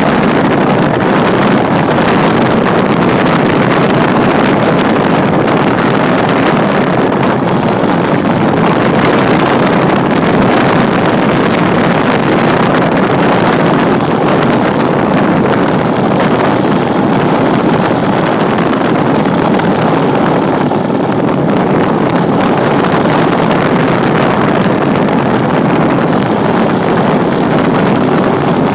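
Engine of a Pitts S-2A radio-control model biplane running steadily in flight, heard from inside its cockpit with air rushing past the microphone. It is really loud throughout.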